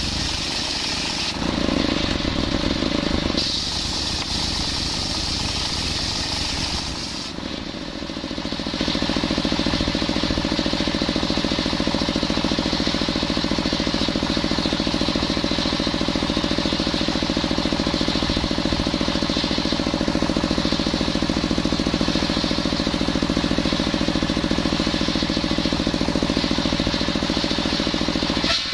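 Stationary single-cylinder diesel engine running steadily, driving a large circular saw blade that rips through a coconut-wood log. The engine's fast even chugging sits under the hiss of the blade in the wood. In the first several seconds the sound shifts abruptly a few times, then it settles into one steady run.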